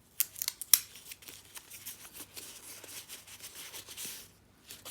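Small packaging being handled and opened by hand: a few sharp clicks and snaps in the first second, then steady crinkling and rustling that stops shortly before the end.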